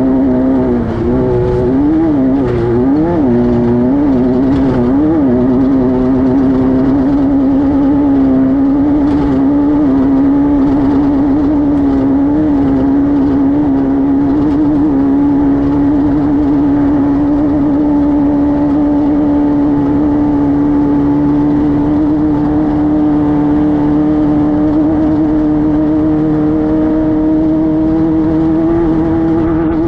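Class 5-1600 off-road race car's air-cooled Volkswagen 1600 engine running hard, its revs dipping and rising a few times in quick succession in the first five seconds, then holding steady and slowly climbing.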